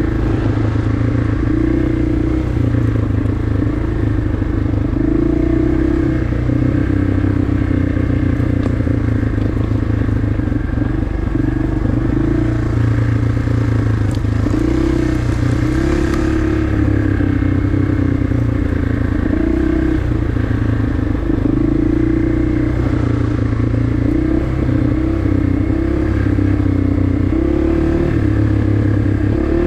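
Single-cylinder four-stroke 250 cc trail motorcycle engine running steadily under way on a dirt trail. Its revs rise and fall every few seconds as the throttle is worked.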